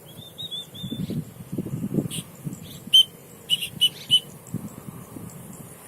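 Calls of a keket babi bird: a quick run of about five short chirps in the first second, then a few sharp, loud single calls about three to four seconds in. A low rumbling noise runs under the first half.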